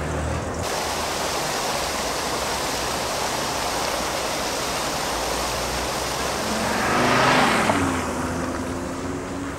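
Fountain jets splashing steadily into the basin, a continuous rushing hiss of falling water. A louder swell with a low hum rises briefly about seven seconds in.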